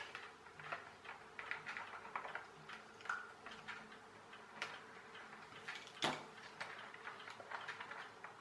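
Faint, irregular plastic clicking and ticking, two or three clicks a second, as the crankshaft end of a Haynes HM04R clear plastic model engine is worked by hand. One sharper click comes about six seconds in. The mechanism is stiff to turn.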